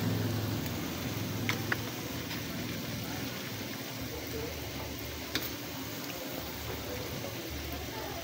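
Coconut-milk jackfruit stew (ginataang langka) simmering in a metal pan, a steady bubbling hiss. A metal spatula stirring it clicks against the pan a few times, about a second and a half in and again near the middle.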